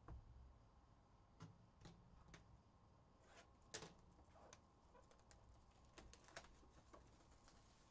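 Faint, scattered light clicks and taps of hands handling a sealed Panini Prizm trading-card hobby box, the clearest about four seconds in; otherwise near silence.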